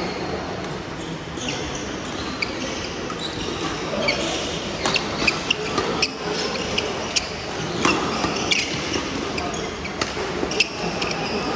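Badminton rally: sharp strikes of rackets on the shuttlecock, with players' footsteps on the wooden court. The strikes come thicker from about five seconds in.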